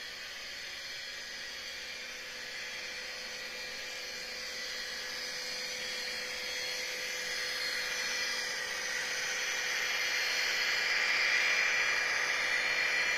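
Sound-equipped HO scale model SD40-2 diesel locomotives pulling under load, their small speakers playing a steady, hissy diesel drone with a high turbocharger whine. It grows louder as the locomotives pass close by, loudest about eleven seconds in.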